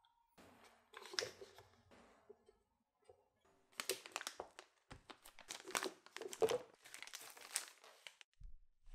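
Plastic piping bag crinkling and rustling as cream is spooned into it with a spatula and the bag is handled, in bursts with a short lull near the middle.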